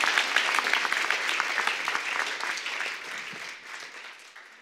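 Audience applauding at the end of a talk: many hands clapping together, dying away near the end.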